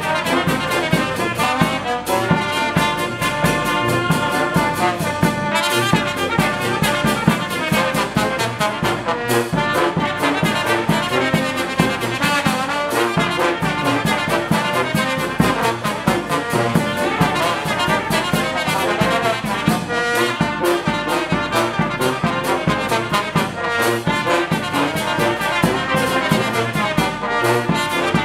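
Brass band playing: trumpets, trombones and tubas sounding together, with a bass drum keeping a steady beat.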